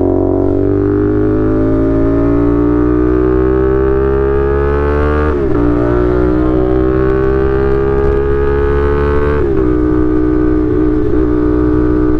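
CFMoto 450SR's parallel-twin engine pulling hard under acceleration, its pitch climbing steadily, with two upshifts where the pitch drops suddenly, about five and a half and nine and a half seconds in, then running at a near-steady pitch.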